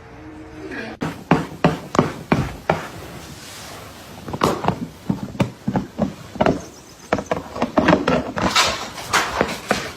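A run of sharp knocks, several a second in quick bursts, irregular in spacing.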